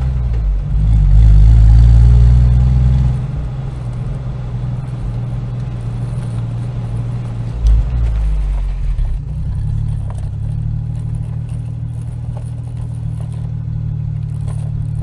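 A motor vehicle's engine running low and steady, loudest for the first three seconds and then settling to a quieter, even level.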